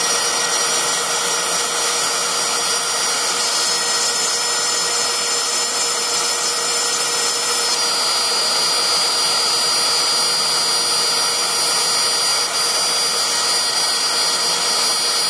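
LowRider 3 CNC router spindle running steadily while a small end mill cuts into a 6061 aluminium plate. It gives a continuous high whine over the noise of the cut.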